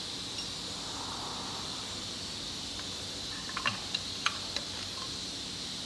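A few light metallic clicks and clinks, about three and a half to four and a half seconds in, as a small metal part is handled against the aluminium cylinder head of a Yamaha 1800 cc marine engine, over a steady background hiss.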